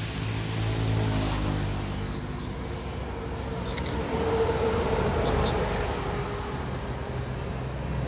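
A motor engine running with a steady drone, strongest in the first two seconds.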